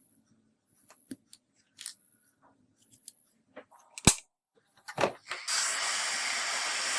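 Small sharp clicks and taps of hand tools on a phone being worked on, the loudest about four seconds in. About five and a half seconds in, a steady hiss starts and keeps going.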